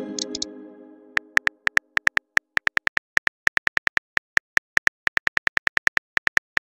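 Smartphone on-screen keyboard clicks, short taps coming irregularly at about five a second as a text message is typed. At the start a ringing, pitched tone fades out over about the first second.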